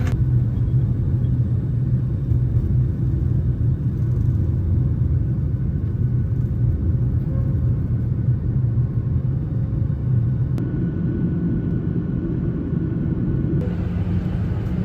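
Steady low rumble of a vehicle's interior while travelling, with no sudden events.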